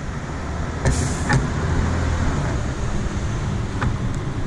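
A few light clicks and knocks, as a boat steering wheel is set onto its helm shaft, over a steady low rumble.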